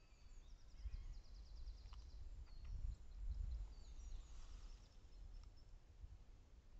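Outdoor ambience: small birds chirping and trilling in quick, high, repeated notes over a faint, uneven low rumble.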